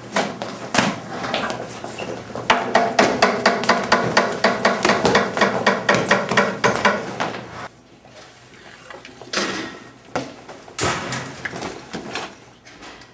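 A staged scuffle: a rapid run of knocks and thuds, several a second, for about five seconds, then a few separate heavier bangs.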